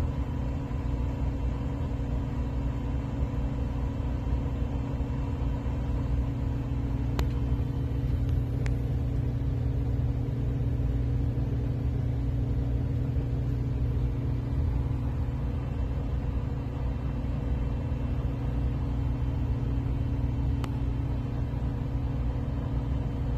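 Steady low rumbling hum with a few faint steady tones, broken only by three faint brief clicks.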